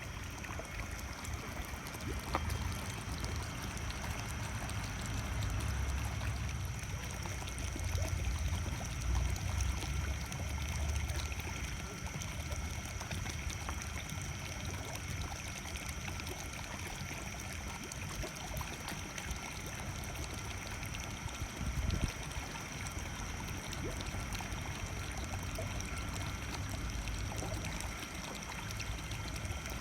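Water steadily pouring and trickling into a koi pond, with faint steady high tones over it.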